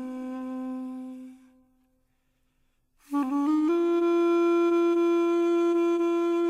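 Background music with long held notes. The first note fades out about a second and a half in, and after a short silence a higher note comes in about three seconds in and holds.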